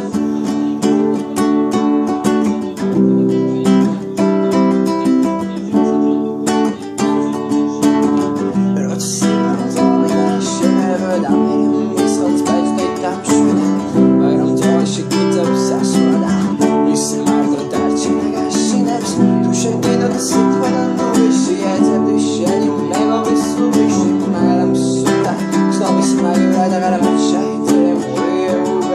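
Acoustic guitar strummed continuously, a quick unbroken run of chord strokes with the strings ringing between them.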